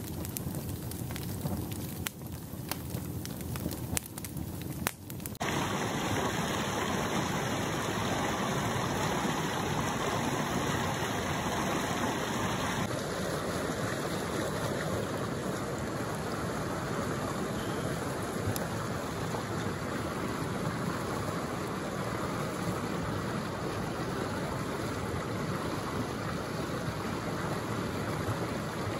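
Wood fire crackling and popping with sharp snaps for about five seconds, then a sudden change to a mountain river rushing steadily over rocks.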